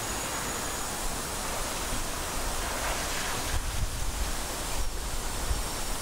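Steady rushing outdoor noise with wind buffeting the microphone in uneven low gusts from about halfway in.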